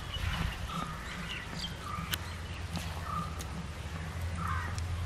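Crows cawing in short calls, roughly one every second, over a steady low rumble, with a few faint sharp clicks in between.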